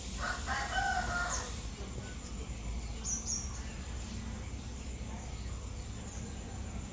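A bird call about a second long near the start, followed by a few short high chirps.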